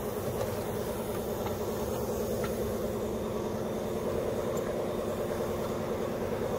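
Car engine running steadily at idle, an even hum with a light hiss.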